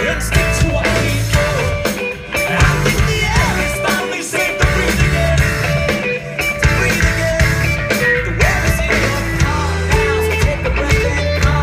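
Live band playing a rock song: a singer at a keyboard over electric guitar and heavy low notes, with a steady beat.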